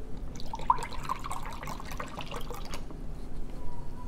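Pineapple nectar being poured into a mixture of fruit syrups and brown sugar, splashing for about two seconds and then tapering off.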